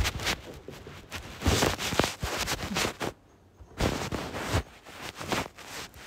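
Rustling and dull thumps of someone moving about close to the microphone, in a string of short irregular bursts.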